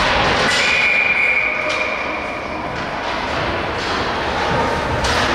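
Hockey sticks and puck knocking against the rink boards, then a referee's whistle blown once, one steady shrill blast of about two seconds, stopping play. More sharp knocks follow near the end.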